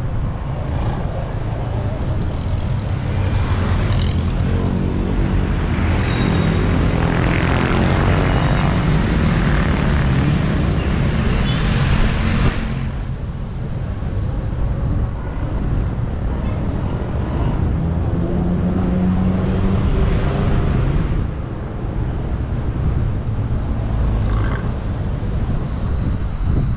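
Road-riding noise on a moving electric scooter: wind rushing over the action camera's microphone, with the drone of other vehicles' engines swelling and fading twice as they pass.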